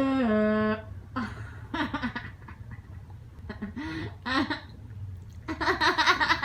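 A woman hiccuping repeatedly: short, sharp vocal gulps with a quick pitch hook, spaced irregularly, and a louder cluster of them near the end. A held pitched note dies away in the first second.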